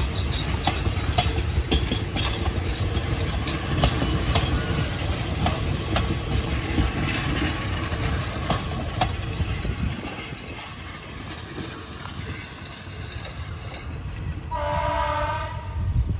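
Passenger coaches of a Thai train rolling past close by, with a low rumble and the wheels clicking over the rail joints, fading after about ten seconds as the train draws away. Near the end a train horn sounds once, for about a second.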